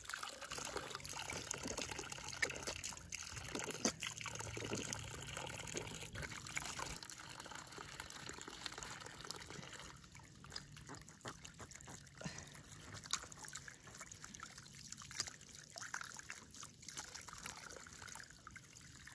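Water trickling from a small spring, with faint irregular splashes of hands scooping and washing in it during ablution; the splashing is busier in the first half.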